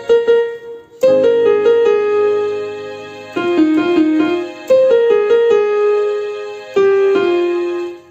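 Electronic keyboard playing a melody line in a piano-like voice: short quick runs of notes that settle onto held notes, over a sustained chord, in four phrases.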